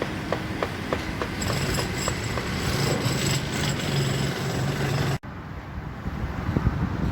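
Construction-site machinery noise with a regular clicking of about three to four clicks a second at first, then a high steady whine over it. The sound cuts off abruptly about five seconds in, giving way to quieter site noise.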